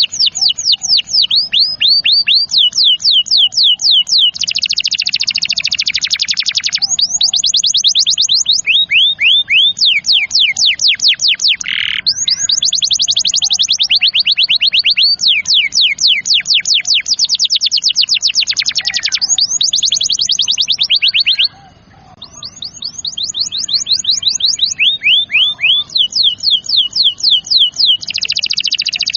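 Domestic canary singing a long rolling song: fast trills of rapidly repeated sweeping notes, switching from one trill to the next every few seconds, with a brief break about two-thirds of the way through.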